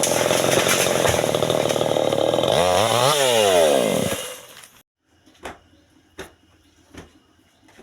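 New West 598XP two-stroke chainsaw running at high revs; about three seconds in the revs drop and climb back, and just after four seconds in the engine stops. A few faint knocks follow.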